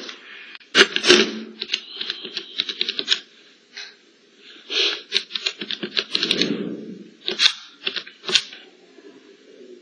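Keys of a handheld calculator being pressed: sharp clicks in several quick runs, with some handling noise.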